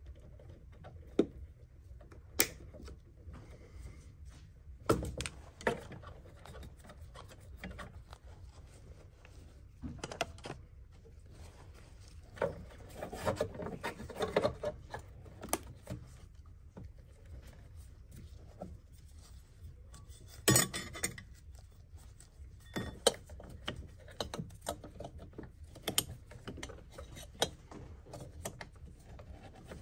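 Hands and tools working on fuel-filter hoses and fittings in a car engine bay: scattered small clicks and metal clinks with cloth rubbing, and a louder cluster of knocks about two-thirds through.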